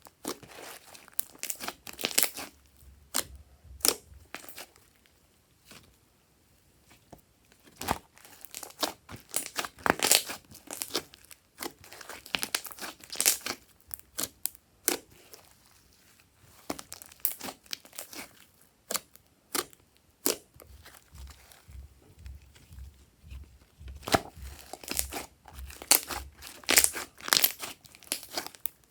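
Slime being squished and worked by hand close to the microphone: a dense run of irregular crackles and sticky popping clicks, with a brief lull about six seconds in.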